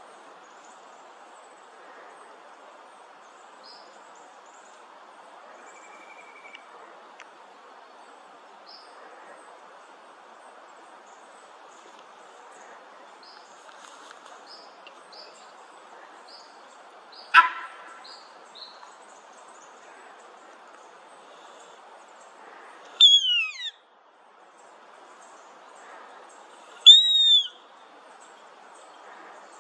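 Sambar deer giving a single loud, short, bark-like alarm call about two-thirds of the way in, the sign of a deer that has spotted the watcher. Faint high chirps of small birds run underneath, and near the end a bird gives a loud steeply falling whistle and then an arched whistle.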